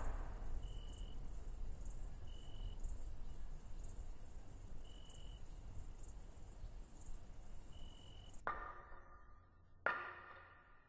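Crickets chirring steadily at night, with a short, clear higher chirp four times, a couple of seconds apart. Near the end the chirring cuts off and a single struck musical note rings out and fades.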